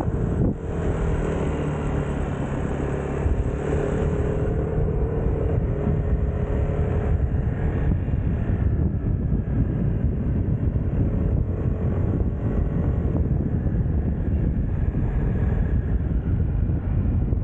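Vespa scooter's single-cylinder engine running at a steady cruise while ridden, its pitched engine note clearest over the first five seconds before a steady low rumble of wind and road takes over.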